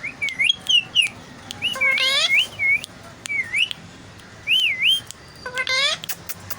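Indian ringneck parakeet whistling a repeated swooping tune, a clear whistle that rises and falls again and again. Two harsher rising calls come about two seconds in and near the end, with small sharp clicks between.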